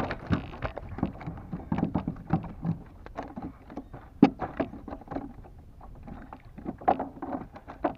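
Irregular knocks, clacks and rattles of gear being handled against a sit-on-top fishing kayak's hull, with one louder knock about four seconds in.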